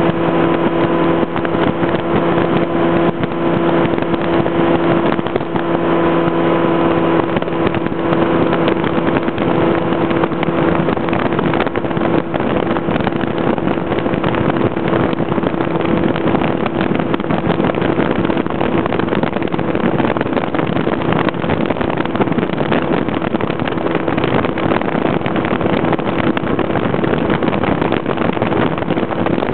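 A vehicle engine running at a steady cruising speed, its hum holding one pitch under a loud, constant rushing noise.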